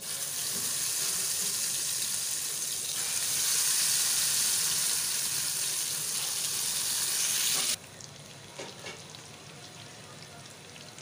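Marinated beef pieces sizzling as they are laid into hot oil for shallow frying. The sizzle swells louder about three seconds in as more pieces go in, then drops suddenly near eight seconds to a quieter steady sizzle with a few pops.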